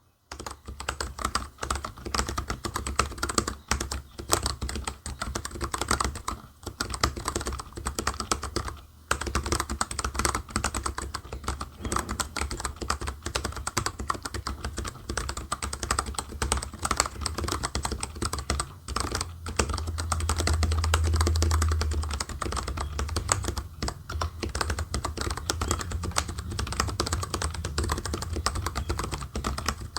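Mechanical keyboard with linear Cherry MX Black switches being typed on fast and steadily, a dense run of key clicks and clacks with a couple of brief pauses.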